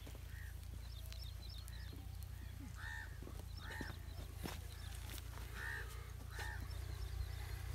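A bird calling outdoors: a short arched call repeated about six times, mostly in pairs, over faint chirping of smaller birds. Scattered faint clicks and a steady low hum run underneath.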